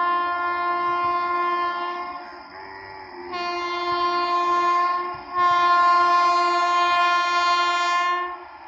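Horn of the approaching Rajdhani Express locomotive sounding in long steady blasts on one note. The first blast ends about two seconds in, and two more follow after short gaps, the last the loudest.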